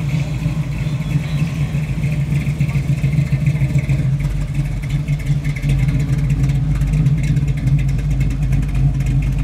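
Chevy II Nova's engine running at low revs as the car pulls slowly past, a steady low exhaust rumble that grows a little louder over the first few seconds.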